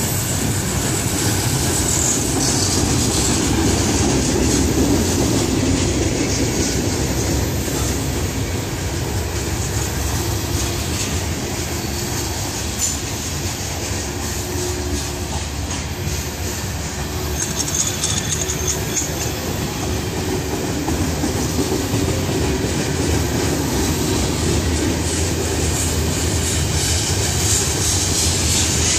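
Freight cars of a CSX freight train rolling past: a steady running noise of steel wheels on rail, with brief high wheel squeals now and then.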